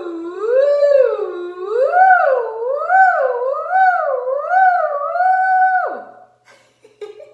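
A woman's voice sliding smoothly up and down in pitch on a hum or 'oo', a vocal siren warm-up. The waves come about once a second at first and then quicker, and it ends with a quick drop in pitch about six seconds in.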